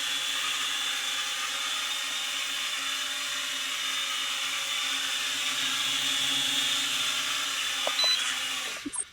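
Small toy quadcopter drone's motors and propellers buzzing with a steady high-pitched whine. Near the end there are a few knocks and the buzz cuts out suddenly as the motors stop.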